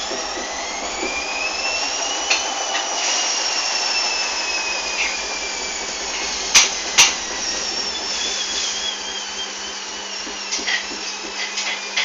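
Hoover washing machine's drum motor whining, rising in pitch over the first couple of seconds and then slowly falling. Two sharp knocks come close together a little over halfway through.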